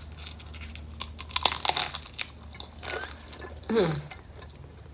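Crunchy hard-shell beef taco being bitten and chewed close to the microphone, a run of sharp crackling crunches loudest about a second and a half in. A brief falling sound of the voice near the end.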